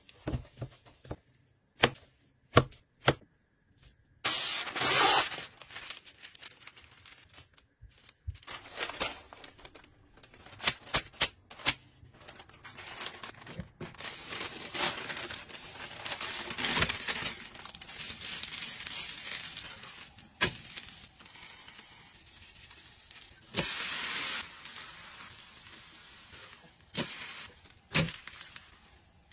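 Kitchen food-prep sounds: a gloved hand squishing and clicking through minced meat in a steel bowl, and parchment paper crinkling. Later comes a long hiss as the flattened meat sheet cooks in a flat pan, with short louder bursts along the way.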